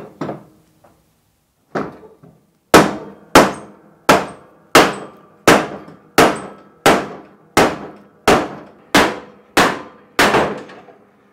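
A hammer striking a wooden block set on top of a John Deere L118 riding mower's front steering spindle, driving the spindle down out of the axle. A few light taps come first, then about a dozen hard, evenly spaced blows, roughly three every two seconds. The spindle is a tight fit in the ungreased axle.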